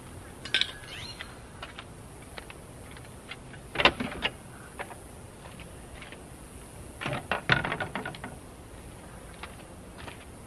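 Belongings being handled and set down beside a car: scattered knocks, clicks and rattles. The loudest come about four seconds in, and a cluster of them around seven to eight seconds in.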